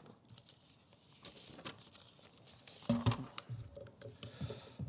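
Sheets of paper rustling and crinkling as they are handled at a lectern, picked up faintly by the microphone, with a louder short sound about three seconds in.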